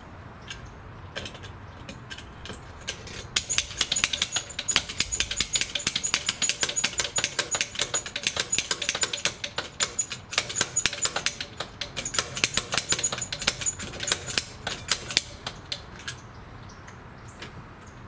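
Lock-pick snap gun fired over and over into a door's deadbolt keyway: a rapid run of sharp metallic clicks as its needle snaps the pin tumblers. It starts with a few scattered clicks, runs dense from about three seconds in, and stops about sixteen seconds in.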